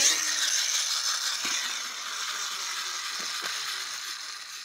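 Golden Bear Brum toy car's rev-up motor whirring as the car runs off across the carpet after being revved, the high whir slowly winding down. A few faint knocks come partway through.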